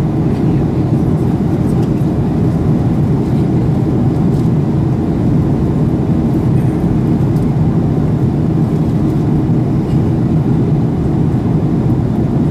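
Steady low roar of a Boeing 737-800's CFM56 turbofan engines and the rushing air, heard from a window seat inside the cabin on approach to landing.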